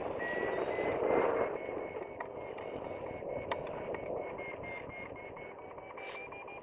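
Flytec hang-gliding variometer beeping in rapid repeated tones, its pitch creeping slightly higher: the audio sign of climbing in a thermal. It sounds over steady wind noise on the microphone, which is loudest about a second in, with a few light ticks.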